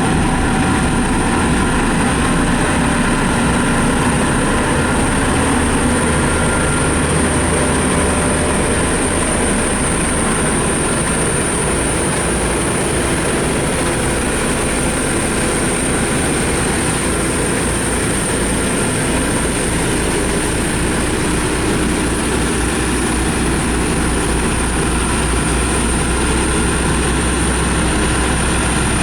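Diesel engines of heavy road-building machinery running steadily at work, with a constant low rumble and a steady high whine over it.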